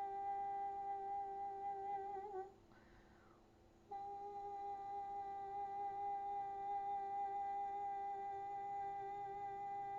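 A woman's voice humming one long, steady, high tone as meditative toning, presented as a tone channelled from the angels. The note wavers and breaks off about two and a half seconds in, leaving a short gap for a breath, then resumes and holds steady.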